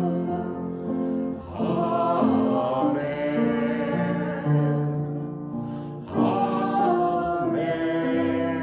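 A small group of men and women singing a hymn together to upright piano accompaniment, in held notes and slow chord changes.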